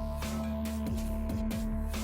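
Electronic background music with a steady beat and deep bass kicks, about two a second.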